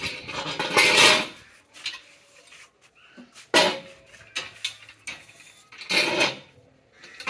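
Steel scaffold tubes and frames clanking and scraping against each other as they are handled and fitted together, in three bursts, the loudest in the first second or so.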